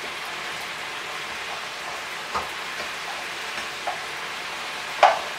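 Chicken stir fry sizzling steadily in a frying pan over a gas burner, with a few light clicks of a fork against the pan and a louder clack near the end.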